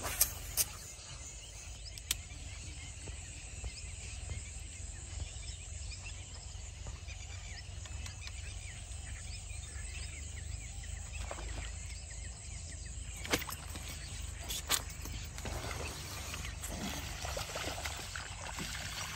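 Steady low outdoor rumble with a few sharp clicks, two of them just after the start as a frog lure is cast with a rod and reel.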